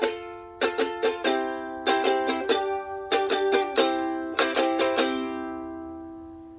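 Ukulele being strummed: quick groups of chord strokes, ending about five seconds in on a last chord that rings out and slowly fades.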